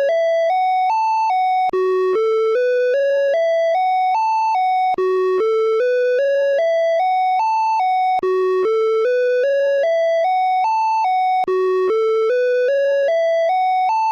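Åland Islands emergency alert (EAS) alarm tone: loud electronic notes stepping upward in pitch, about three notes a second, the rising run repeating about every three seconds with a brief gap between repeats.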